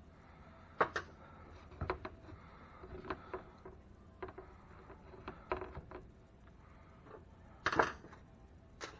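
Scattered light clicks and knocks of small RC truck parts and hand tools being handled during disassembly, with a louder short clatter near the end.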